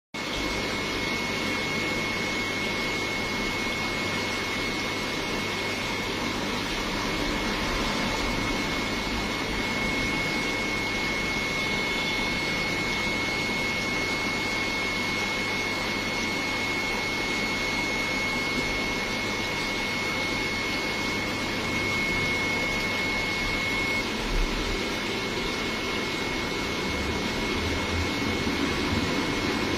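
Steady whooshing hum of aquarium air pumps and filters with bubbling water, a constant thin high whine running through it.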